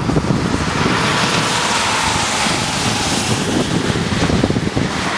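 Traffic passing on a rain-wet highway: a steady hiss of tyres on wet pavement, with wind buffeting the microphone in a low, uneven rumble.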